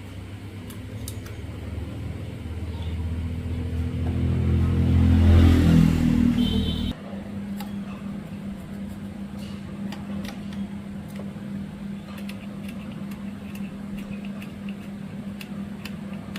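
A motor runs, growing louder over about six seconds and stopping suddenly about seven seconds in, leaving a steady lower hum with light ticking.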